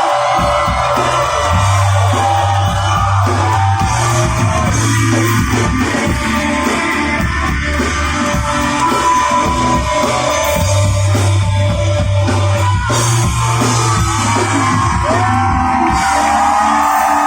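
Live rock band playing a song with singing over guitar and a bass line of long held low notes.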